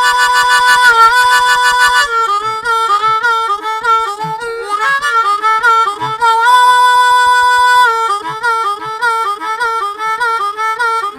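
Blues harmonica solo in a backing music track: long held chords near the start and again about two-thirds through, with quick bent notes in between.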